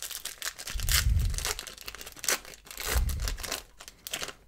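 A trading-card pack's paper wrapper with a foil lining being torn open and pulled apart by hand, crackling and crinkling. Two dull low thumps come about a second in and at about three seconds.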